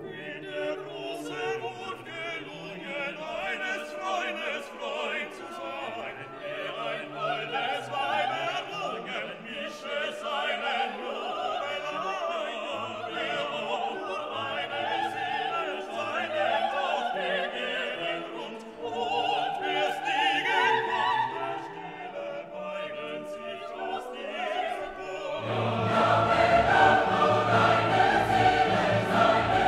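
Background music: classical-style singing over orchestral accompaniment, swelling fuller and louder near the end.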